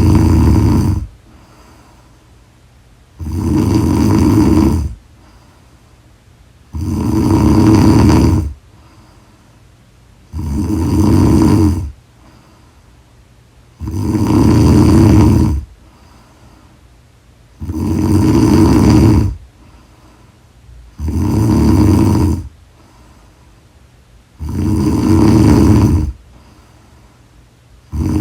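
A woman snoring loudly in a steady rhythm: a long rasping snore of about a second and a half to two seconds, repeating about every three and a half seconds, with quiet breaths between.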